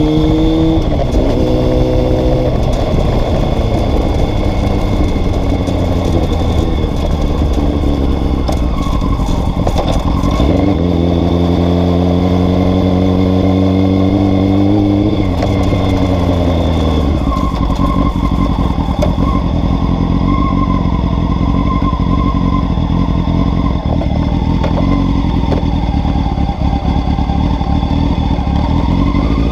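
Honda CBR 600 F3 inline-four engine accelerating under heavy wind rush, its pitch climbing, dropping at a gear change and climbing again in the first few seconds. It pulls up once more about ten seconds in, eases off around fifteen seconds, then fades under a steady rush of wind at cruising speed.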